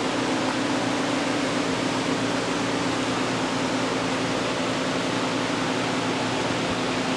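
Steady mechanical whirring: an even hiss with a constant low hum.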